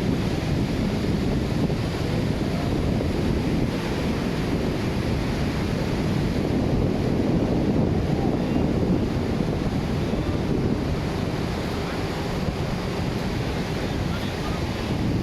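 Surf washing onto a beach, with wind buffeting the microphone, steady throughout.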